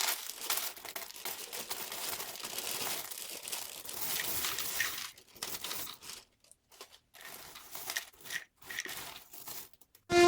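Plastic crinkling and rustling, dense for the first half and then in short bursts with brief silences between them. Music cuts in right at the end.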